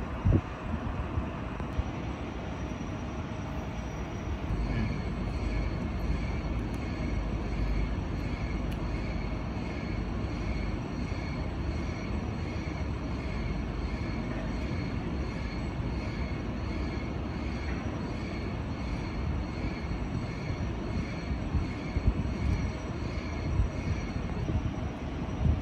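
Steady low rumble of machinery in a factory. From about five seconds in, a faint high electronic beep repeats about one and a half times a second, and there are a few knocks near the start and end.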